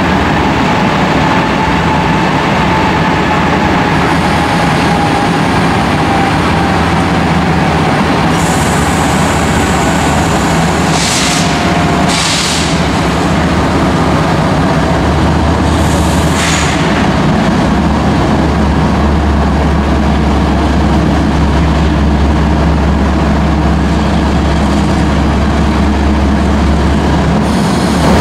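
Diesel freight locomotives of a BNSF intermodal train approaching and passing slowly, a steady deep engine rumble that grows stronger in the second half. Short hissing bursts come about eleven, twelve and sixteen seconds in.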